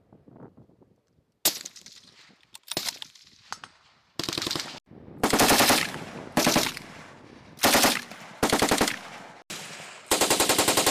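A few single gunshots, then six short bursts of automatic fire from a belt-fed machine gun, each burst a rapid, even string of shots lasting under a second.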